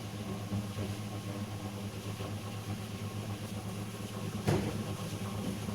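Steady low hum of a running machine or electrical equipment, with a faint brief handling noise about four and a half seconds in.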